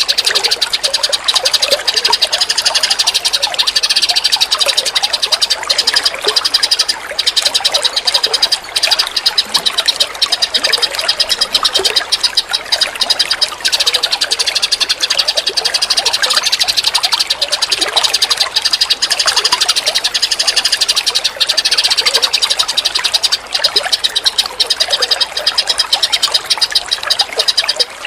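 Songbirds singing in a bird-training recording, with quick chirps and notes over a dense, steady, rapid chirring chorus that fills the whole stretch.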